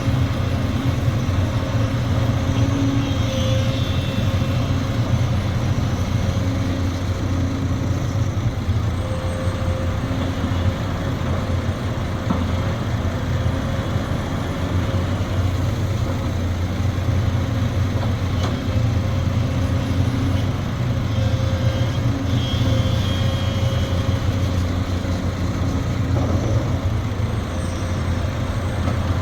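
Sumitomo SH370LHD-6 excavator's diesel engine running steadily, a low continuous drone with faint higher tones that come and go.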